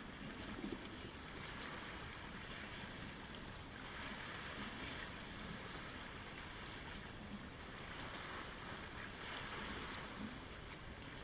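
Small waves on Lake Ontario lapping in a steady wash, swelling up twice, about four and nine seconds in.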